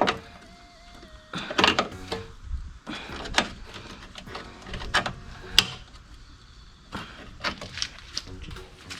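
A series of irregular scrapes and knocks, about ten of them, from metal parts being handled and moved.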